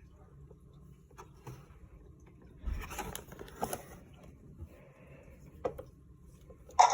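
Light scrapes, taps and rustles of a plastic toy and its packaging being handled, busiest around the middle. Just before the end a much louder sound starts suddenly.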